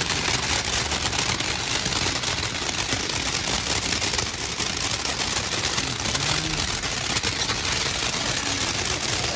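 Several ground fountain fireworks spraying sparks at once: a steady, dense hiss with fine crackling.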